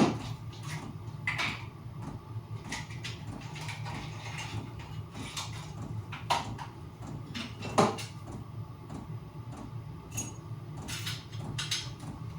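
Sharp clicks and clacks of a handheld staple gun being loaded with a fresh strip of staples and handled, a few seconds apart, over a steady low hum.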